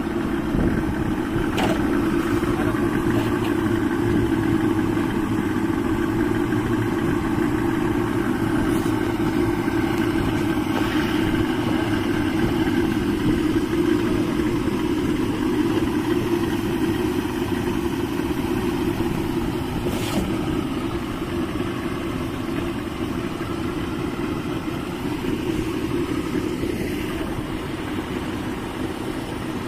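Twin Yamaha 200 hp two-stroke outboard motors running steadily with an even drone, easing off a little near the end.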